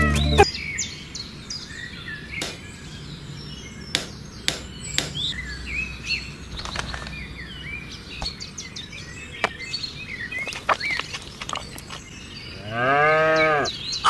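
Songbirds chirping, with a few sharp clicks, then a cow mooing once for about a second near the end.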